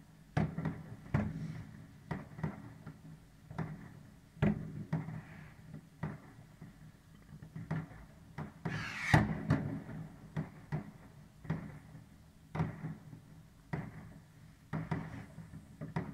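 New Year's Eve fireworks going off at uneven intervals: scattered bangs of firecrackers and rockets, some near and loud, some distant and faint. One louder burst comes about nine seconds in, with a hissing crackle.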